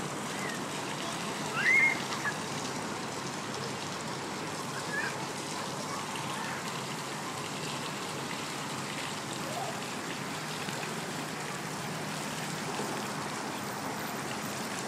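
Steady hiss of water running and trickling across a splash-pad floor. One short, rising high squeal about two seconds in stands out, with a few faint chirps later on.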